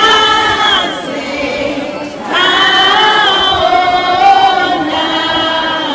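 A large group of schoolchildren singing together in unison, holding long notes; a new phrase begins about two and a half seconds in.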